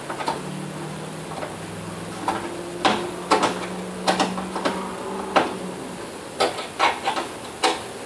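Clicks and knocks of the plastic and metal parts of an elliptical bike's console being handled and fitted to its post with a screwdriver, with a low steady hum under the first five seconds or so.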